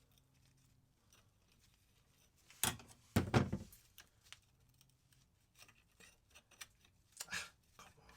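Steel clutch plates and discs of a Suzuki RM80 clutch clinking and rattling as they are handled and fitted into the clutch basket: a short burst of clatter about three seconds in and a briefer one near the end, with quiet handling between.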